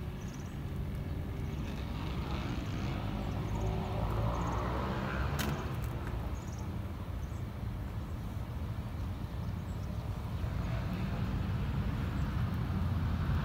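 Steady low outdoor rumble of background noise, with a single sharp click about five seconds in.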